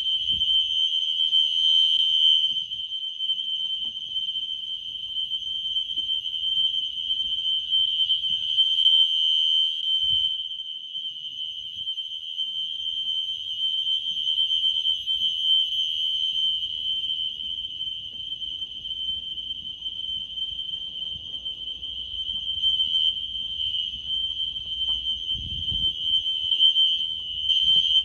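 System Sensor SpectrAlert Classic fire alarm horns sounding one continuous high-pitched tone, set to steady rather than temporal-three, as the fire alarm system is put through a test. The loudness rises and falls, but the tone never breaks.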